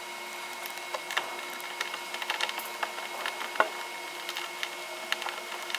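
Scattered light clicks and taps of small hardware being handled and fitted, a bolt and plastic spacer going onto a metal bar support. The loudest click comes about three and a half seconds in, over a faint steady hum.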